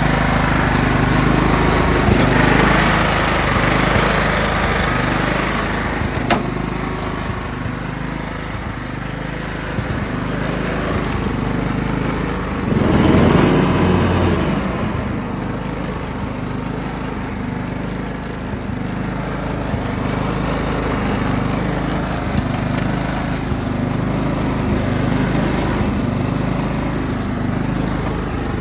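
Lawn mower engine running steadily on a freshly fitted spark plug, with a sharp click about six seconds in and a brief louder surge around thirteen seconds in.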